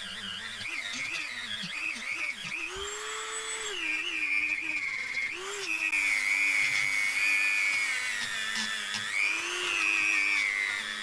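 Dremel rotary tool spinning a stainless steel wire brush against a cylinder head, scrubbing it clean to bare metal. A high motor whine that wavers up and down in pitch throughout.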